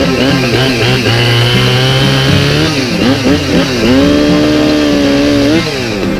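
Two-stroke chainsaw running at high revs, its pitch dipping and recovering several times, then holding steady for about a second and a half before falling away near the end.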